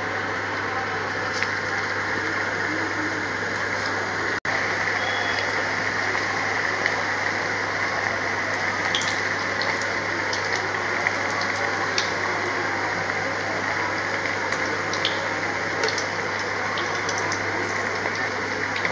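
Raw-banana and gram-flour koftas deep-frying in hot oil in a kadai: a steady sizzle with scattered small pops and crackles, over a low steady hum.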